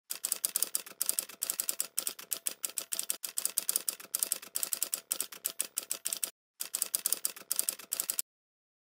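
Typewriter-style typing sound effect: a quick run of clicking keystrokes with a short break about two-thirds of the way through, stopping shortly before the end.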